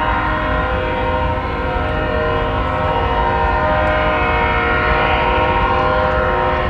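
Train air horn sounding in one long, steady blast over the low rumble of a train on the rails.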